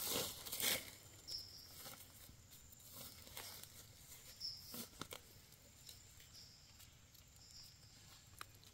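Faint rustling and scraping of dry leaf litter and soil as fingers dig a mushroom out of the ground, with small clicks and crackles that come and go. A few short high chirps sound in the background.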